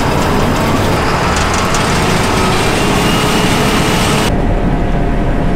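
John Deere combine running with its threshing machinery and header engaged, a loud, steady mechanical din. About four seconds in, the high hiss above it cuts off abruptly, leaving the low running sound.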